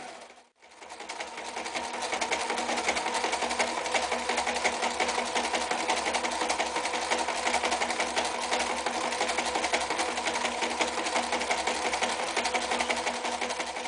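Frister + Rossmann 1080 sewing machine running at a steady speed, sewing a zigzag stitch through four layers of sailcloth, its needle strokes coming in a rapid, even rhythm. The sound cuts out briefly just after the start, then picks up again.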